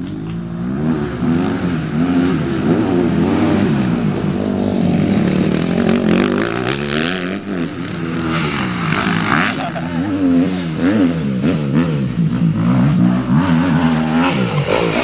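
Motocross bike engine revving up and down over and over, its pitch rising and falling about once a second as the rider works the throttle.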